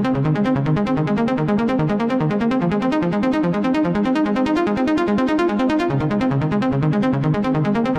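Electronic music: a fast, evenly pulsing synthesizer pattern of stepping notes over a steady beat.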